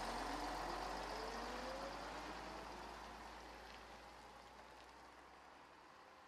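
A heavy vehicle pulling away: its engine note rises steadily in pitch over the first few seconds while the whole sound slowly fades.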